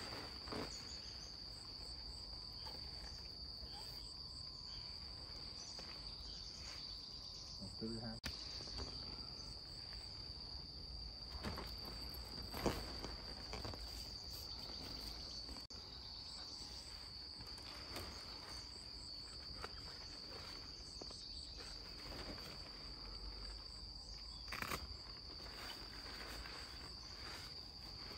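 A steady, high-pitched drone of insects. A few short, sharp clicks and knocks come through it, the loudest about halfway, as the pop-up tent's poles and hub are handled.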